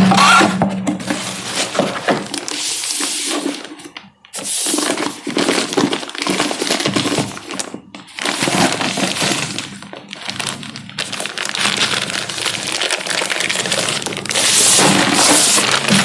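Cardboard box and plastic bag packaging being handled and unwrapped, a crackling rustle in several long stretches with brief pauses about four and eight seconds in.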